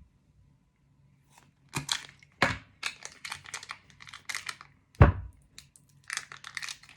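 Plastic packaging of a new slime tub crinkling and tearing as it is unwrapped. The crackling starts about two seconds in, with one sharp thump about five seconds in.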